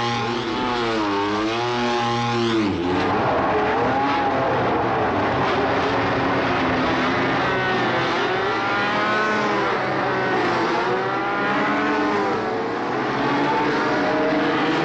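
Mid-1980s turbocharged Formula One engines revving on the starting grid, the pitch swinging up and down as the throttles are blipped. At first one engine stands out; about three seconds in the sound changes abruptly to several engines revving at once.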